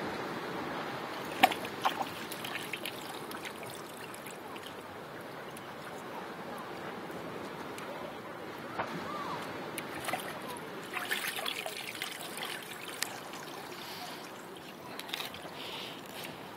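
Seawater trickling and sloshing in a rock pool, with a scattering of sharp splashes as a dog paws and snaps at fish in the water.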